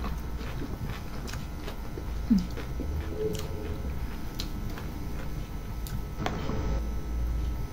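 Quiet eating sounds of two people chewing rolled lahmacun: small clicks and faint crinkles of the flatbread over a low background, with a short low hummed sound about two seconds in.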